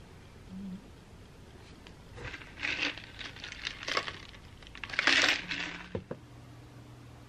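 Rustling, crinkling noise in three short bursts, each under a second, with a sharp click near the end.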